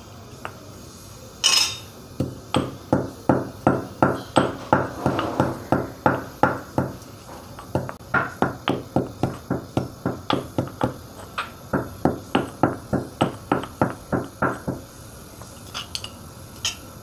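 Stone pestle pounding cumin seeds in a stone mortar: a steady run of strikes, about three a second, with a brief break about seven seconds in, stopping a couple of seconds before the end.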